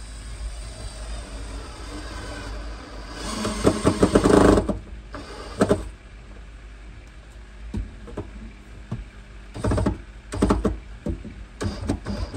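Cordless drill driving a screw in a burst of about a second and a half, a few seconds in, followed by several short knocks and clatters; a steady low hum underneath.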